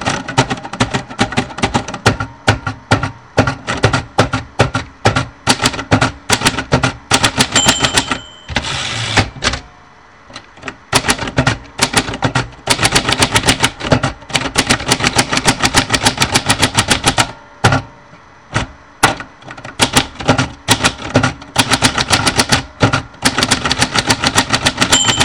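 Typewriter being typed on in fast runs of key clacks with short pauses. The margin bell rings about seven and a half seconds in, followed by a brief rasp of the carriage return, and the bell rings again at the very end.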